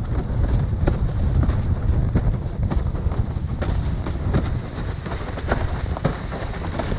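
Wind buffeting the microphone in a loud low rumble while a JP Superlightwind 90 windsurf board slaps over chop in irregular sharp knocks, one or two a second.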